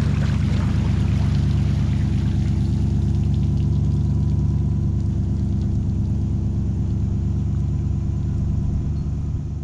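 Steady low rumble of a pickup truck's engine hauling a boat on its trailer up a launch ramp, with water pouring off the hull and trailer.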